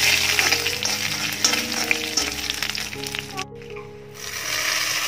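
Hot oil sizzling and crackling in a pan as curry leaves, dry red chillies and mustard seeds fry for a tadka tempering. The sizzle drops out for about half a second some three and a half seconds in, then comes back.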